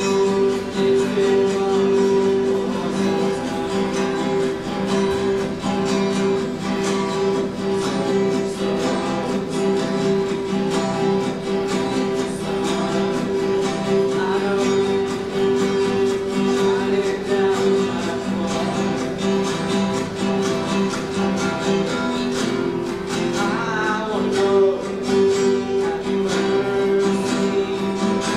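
A student ensemble of acoustic guitars strumming chords together, with a boy singing the melody into a microphone at times.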